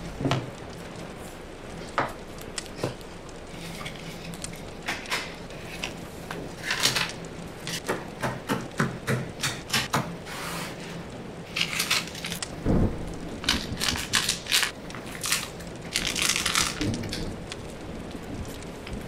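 Unboxing and handling noises: a cardboard gift box opened and small items, stickers and small plastic zip bags, handled and set down on a table, with a run of light taps and clicks and several short bouts of crinkling plastic.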